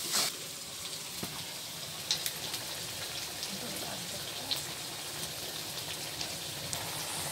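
Spice paste sizzling and bubbling in a large iron karahi over an open fire: a steady hiss with a few sharp pops. The masala is being fried down before the chicken goes in.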